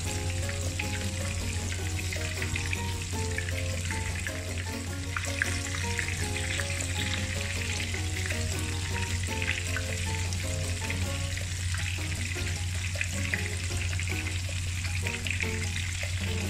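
Chicken pieces coated in crushed potato chips shallow-frying in bubbling hot oil in a pan: a steady sizzle with a constant crackle of small pops.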